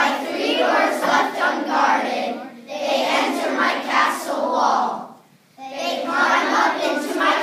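A large group of children reciting a poem in unison, phrase by phrase, with a short pause about five seconds in.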